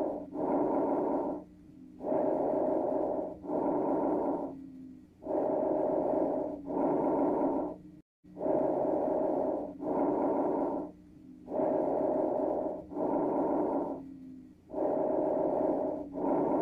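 Recorded lung sounds as heard through a stethoscope: paired breaths, in and then out, each lasting just over a second and repeating about every three seconds, with a steady wheeze-like tone running through each breath.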